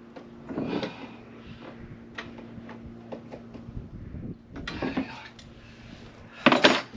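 Hands working inside a hollow plastic waste water tank, fitting a washer onto a pipe fitting through a drilled hole: small plastic clicks, rustles and knocks, with one louder clatter near the end.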